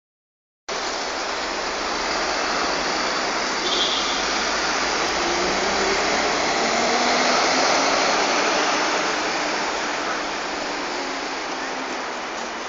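Busy city street ambience: a steady rushing roar of traffic, with faint engine notes from passing vehicles. It starts abruptly under a second in, swells slightly in the middle and eases a little near the end.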